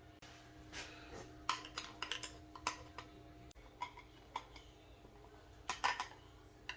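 Small metal rifle parts and tools on an AR-style lower receiver being handled and fitted, giving irregular light metallic clicks and taps with a short cluster near the end.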